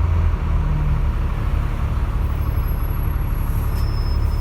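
A double-decker bus's engine and drivetrain running, heard from inside the bus: a steady low drone, with a faint high whine coming in about halfway through.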